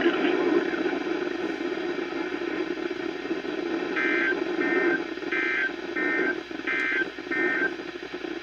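Radio audio with a steady hiss. About halfway in, six electronic beeps of about half a second each alternate between a higher, chord-like tone and a lower tone, three of each.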